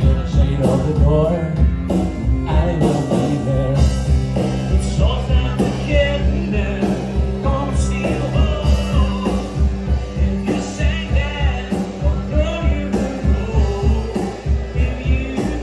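Live rock band playing with a steady drum beat and bass, with a singing voice or lead instrument over it.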